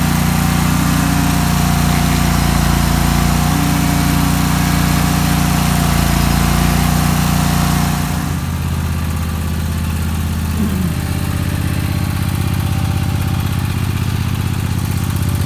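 Stump grinder's gas engine running steadily. About eight seconds in, its note drops to a lower, slower speed.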